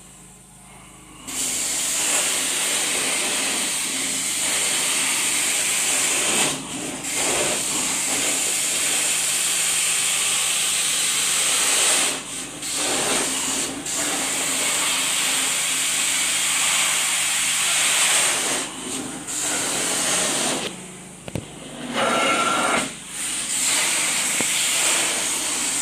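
Truck-mounted hot water extraction carpet wand spraying and vacuuming a stain out of carpet, a steady loud hiss. It starts about a second in and breaks off briefly several times.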